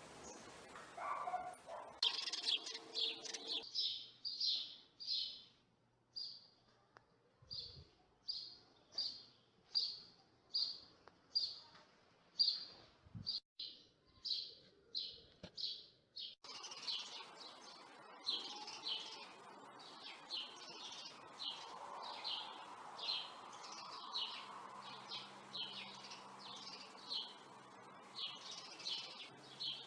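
A bird chirping over and over: short high chirps about one and a half a second. About halfway through, a steady background hiss comes in under them.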